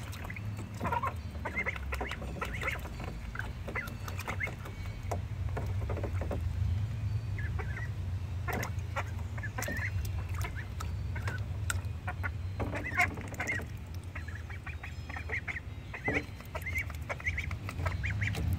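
Ducklings calling with many short, high peeps and quacks, over light splashing of water in a shallow plastic kiddie pool. A steady low rumble runs underneath.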